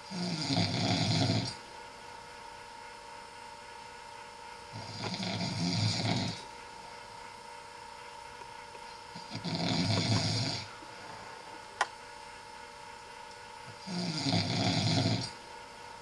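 A man snoring in his sleep: four long snores about four and a half seconds apart, each lasting about a second and a half, over a faint steady hum. One sharp click falls between the third and fourth snores.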